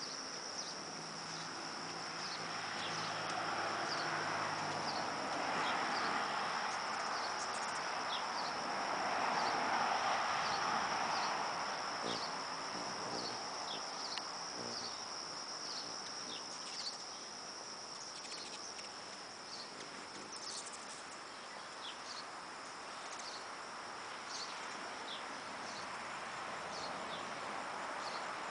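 Steady, unbroken high-pitched trill of insects such as crickets, with scattered short, high chirps over it and a soft background hiss.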